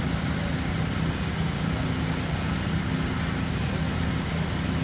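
Fire engine's engine running steadily, a constant low rumble over a haze of noise.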